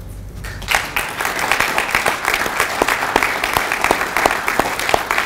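Audience applauding, many hands clapping at once; the applause starts about a second in and keeps going steadily.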